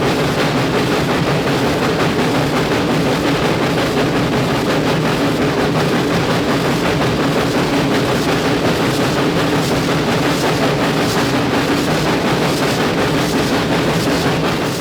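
A steam-hauled passenger train running along the track: a loud, steady rumble with a steady low hum underneath.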